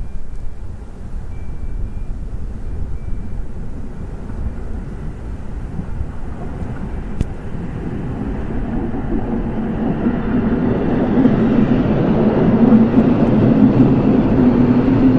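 Polish-built EN57 electric multiple unit pulling away and approaching on the track, a rumble with a steady hum that grows steadily louder over the second half as the train draws level.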